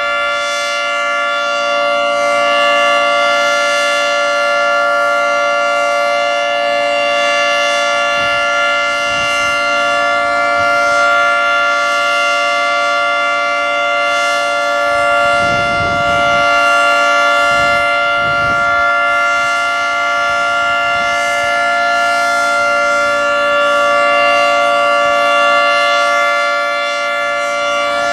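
Federal Signal 3T22 three-tone electromechanical siren at full speed, sounding a loud, steady chord during a siren test, swelling slightly in loudness now and then. A brief low rumble comes through about halfway.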